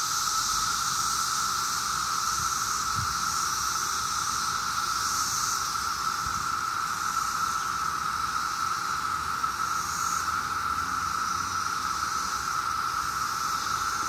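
Massed chorus of Brood X 17-year periodical cicadas: a steady, unbroken drone with a fainter high hiss above it.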